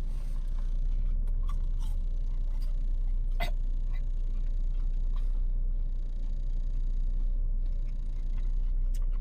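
Steady low rumble of a car idling, heard inside the cabin, with a few faint clicks.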